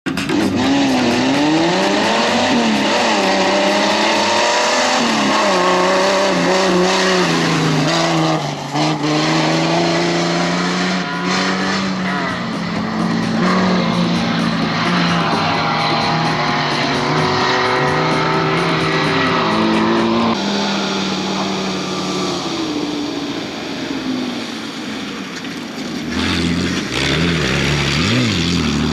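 Off-road racing 4x4's engine revving hard, its pitch climbing and dropping over and over through gear changes. It eases and falls a little quieter about twenty seconds in, then revs up again near the end.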